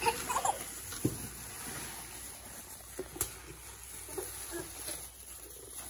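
Quiet handling of a rigid gift box as its lid is opened, with a few light knocks about a second and three seconds in.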